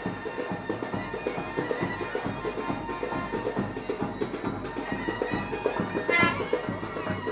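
Indian wedding street music: drums beating a fast, dense rhythm under a reedy wind instrument holding long notes, which slides up to a new note about six seconds in.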